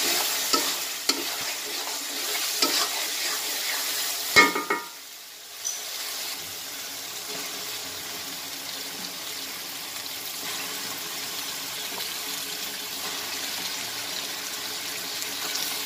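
A spoon stirs and scrapes a sizzling spice paste in a karai, with a sharp metallic clank about four and a half seconds in. After a brief lull, steady sizzling of raw chicken pieces added to the hot masala.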